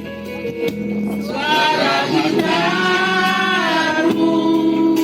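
A man singing a slow song with long, held notes over backing music; for the first second and a half only the backing music plays, then the voice comes in.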